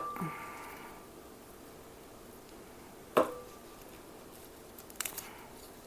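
A single sharp clink about three seconds in, ringing briefly, then a few light ticks near the end, from hands working over a white ceramic baking dish and small bowl while placing basil leaves; otherwise quiet room tone.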